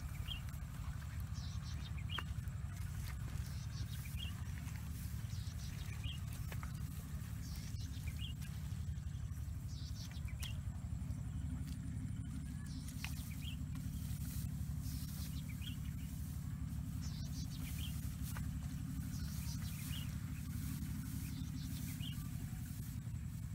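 Short high bird chirps every second or two over a steady low rumble, with a few faint knocks of a hoe chopping into wet mud and grass.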